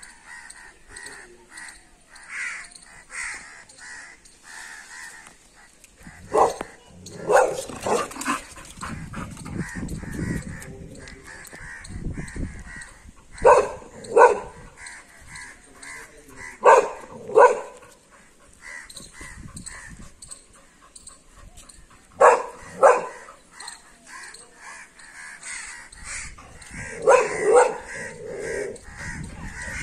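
Pit bull barking in short groups of two or three loud barks every few seconds, alarm barking at a monkey in a tree.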